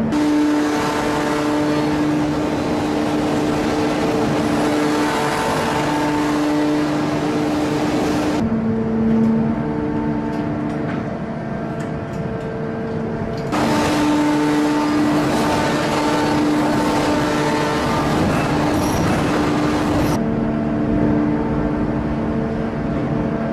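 CNC gear-cutting machine running: a steady machining hiss over several steady motor tones. The hiss drops away suddenly about 8 seconds in, returns about 13 seconds in, and drops again about 20 seconds in.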